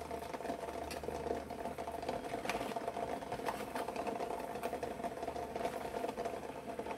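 Water at a rolling boil in a stainless steel pot, with eggs knocking and rattling against the pot in a rapid, continuous patter, and a few sharper clinks of a metal spoon against the pot.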